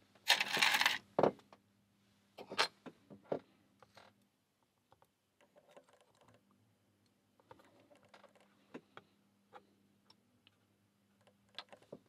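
Small metal parts of a tubular pin-tumbler lock and a slim metal tool being handled: a brief scraping rustle just under a second long, a sharp click, a few more clicks, then faint scattered ticks.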